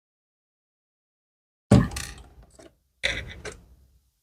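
Two sudden handling noises of a laptop and screwdriver being worked on, a bit over a second apart, each a sharp knock with a rubbing scrape that fades over about a second.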